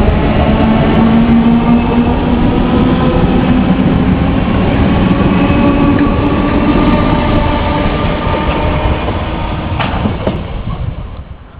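A Merseyrail Class 508 and Class 507 electric multiple unit (third-rail DC) passing close by at a station platform, with a running rumble under a traction motor whine that slowly rises in pitch as the train gathers speed. The sound grows quieter near the end.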